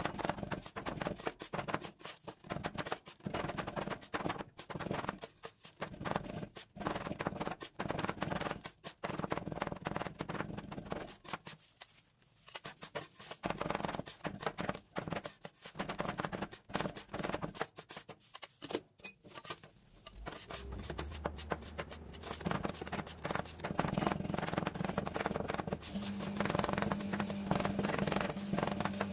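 Two metal spatulas rapidly chopping and tapping on a stainless-steel ice cream roll cold plate, with scraping in between, as kernels are cut into the freezing cream base. A steady low hum joins about two-thirds of the way through.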